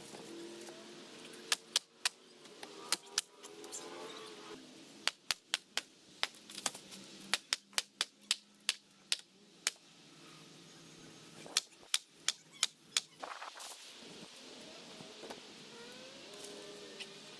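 Hammer blows pounding on a shop wall during demolition: sharp strikes in uneven runs, a few early on, then a quick series of about fifteen in the middle and about four more a little later.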